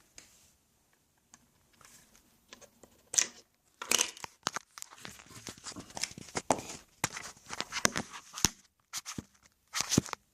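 Handling noise of a phone being moved while it records: rubbing, rustling and quick irregular clicks and knocks starting about three seconds in, after near quiet.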